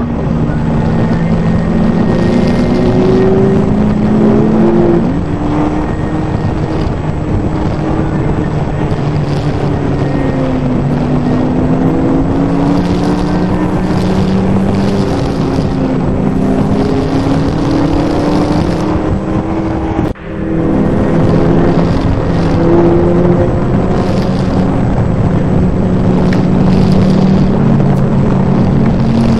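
Car engine running under load, its note rising and falling slowly as the throttle changes, with a brief break about twenty seconds in.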